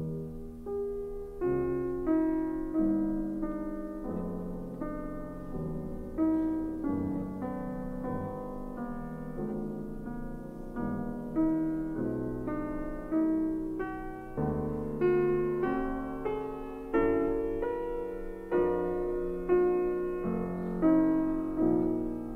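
Slow background piano music, with notes and chords struck about every second and a half and left to ring and fade.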